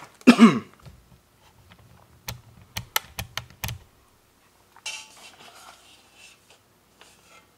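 A short vocal sound, then packaging being handled: a quick run of sharp plastic clicks and taps as a clear blister pack of hydraulic lifters comes out of its cardboard box, followed by a brief soft rustle.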